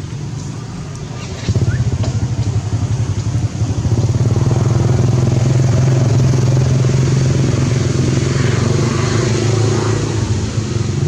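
A motor engine running close by, steady, getting much louder about a second and a half in.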